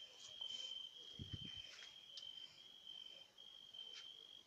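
Faint steady cricket trill, one high pitch held with brief breaks, with a few soft low thumps about a second in.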